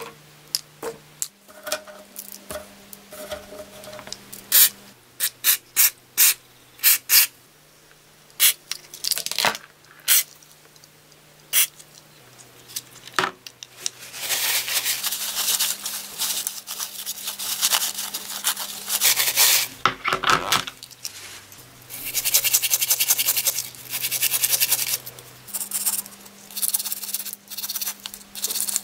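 Small metal drill-gearbox parts and screws clicking and clinking as they are handled and set down, then a small wire brush scrubbing the drill's gear and spindle in two long stretches about halfway through and later.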